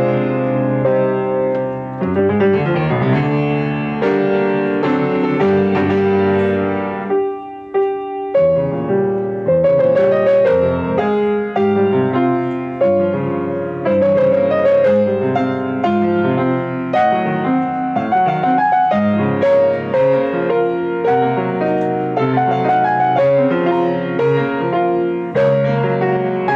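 Wendl & Lung grand piano played solo: a continuous piece of many quick notes and chords. About seven seconds in the notes thin out briefly to a held sound, then the playing picks up again.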